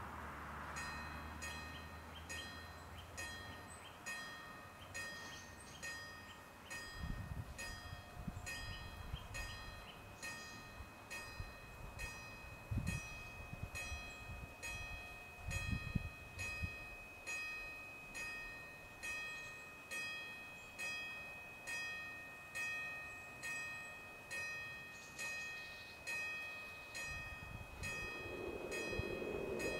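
Level-crossing warning bell striking steadily about once a second, each stroke ringing out and dying away: the crossing is closing for an approaching train. A few low rumbles come in the middle, and near the end the noise of the oncoming train starts to build.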